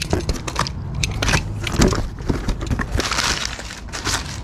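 Utility knife slitting the tape on a cardboard box, then the flaps pulled open and crumpled brown packing paper rustling as it is pulled out: a run of scrapes and crinkles, densest about three seconds in.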